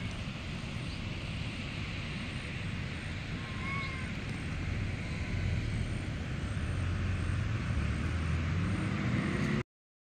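A vehicle running steadily on the road, a low rumble with some noise above it that grows a little stronger in the second half. There are two faint short chirps about four seconds in, and the sound cuts off suddenly just before the end.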